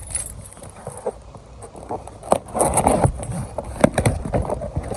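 Box packaging and metal kit parts being handled, rustling with scattered sharp clicks and knocks.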